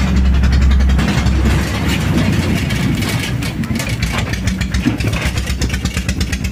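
Engine of a molek, a small motorized rail trolley, running with a steady rapid pulsing; a heavy low hum in the first second eases off.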